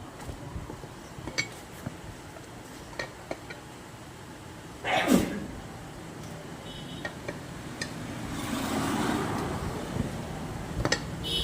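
Steel tyre levers clinking and knocking against the wheel rim while the tyre bead is worked back onto an e-rickshaw rim by hand, with scattered sharp clicks and a louder short rubbing sweep about five seconds in.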